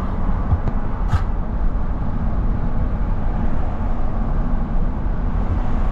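Steady low rumble of a car driving at highway speed, heard from inside the cabin: tyre and road noise with the engine underneath. A brief click comes about a second in.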